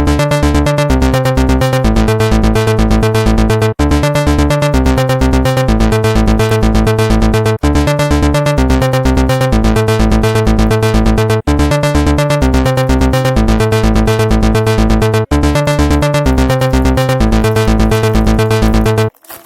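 Electronic background music with a steady beat, its phrase repeating about every four seconds with a brief break between repeats; it stops abruptly just before the end.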